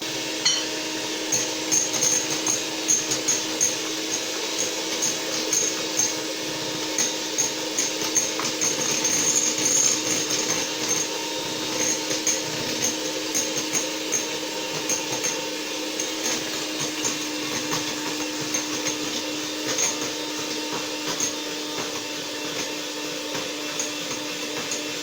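Electric mixer switched on and running steadily at a constant speed, beating eggs with sugar toward a creamy batter, its motor hum mixed with light, rapid ticking.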